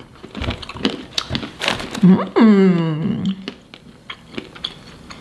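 Crunching and chewing of shelled barbecue pistachios, with a drawn-out hummed 'mmm' falling in pitch about two seconds in.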